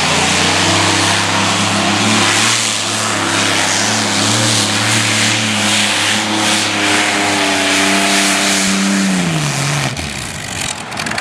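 Modified pulling tractor with several engines running flat out as it drags the weight sled, a steady high engine note. About nine seconds in the engine note falls in pitch and dies away as the engines are throttled back at the end of the pull.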